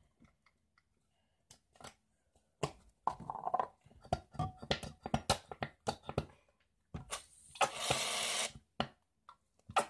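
Aerosol can of shaving foam spraying in one hiss of about a second, near the end. Before it come scattered short clicks and knocks of pots and bottles being handled.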